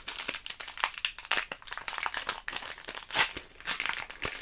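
Foil wrapper of a Pokémon Celebrations booster pack crinkling in quick, irregular crackles as it is handled and torn open by hand.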